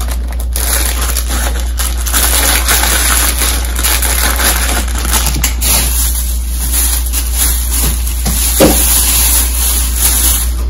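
Plastic shopping bag and clothing packaging rustling and crinkling as clothes are pulled out and handled, over a steady low hum.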